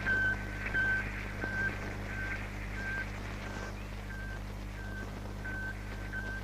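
Radio signal of Sputnik 1, the first Soviet artificial Earth satellite: a regular series of short high beeps, about three every two seconds, over a steady low hum.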